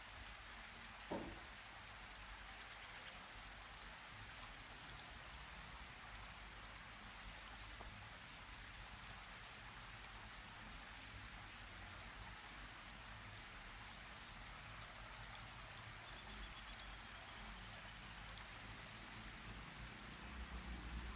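Faint steady hiss, with one short sound falling in pitch about a second in.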